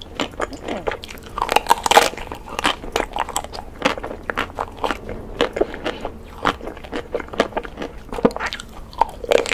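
Close-miked biting and chewing of chocolate-coated Magnum ice cream bars: the hard chocolate shell cracks in many sharp, irregular crunches, several a second.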